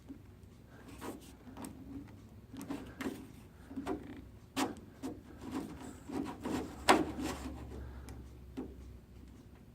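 Contour gauge being handled and pressed against a car door's edge: rubbing and irregular clicks and knocks, the sharpest about seven seconds in.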